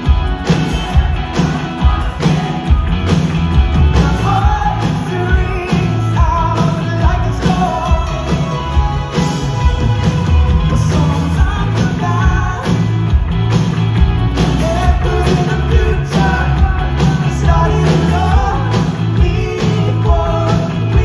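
Live rock band playing through a venue's sound system, with guitars, keyboards and drums under a lead singer, heard from the crowd. A steady drum beat drives it, about two hits a second.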